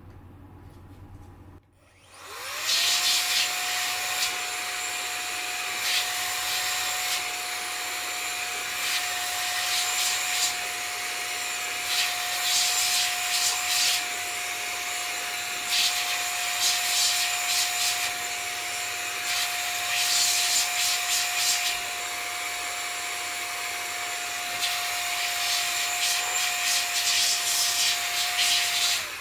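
Electric air blower spinning up about two seconds in, then running with a steady high whine and a rush of air that swells louder in stretches as it is played over a circuit board to dry off isopropyl alcohol; it cuts off near the end.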